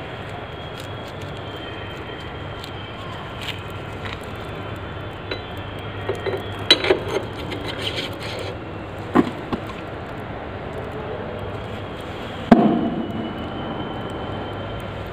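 Metal knocks and clinks as the steel rear axle is pushed and tapped through the motorcycle's rear wheel hub and chain adjuster. There is a cluster of knocks around the middle and a single loudest knock near the end with a short ring, over a steady background hum.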